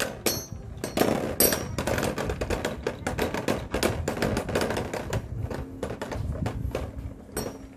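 Two Beyblade Burst DB tops, Savior Belial and Tempest Solomon, spinning against each other in a plastic stadium, their plastic and metal parts clicking and clattering in rapid, dense contact. The clicks thin out in the last couple of seconds, leaving a steady low hum as the tops spin down.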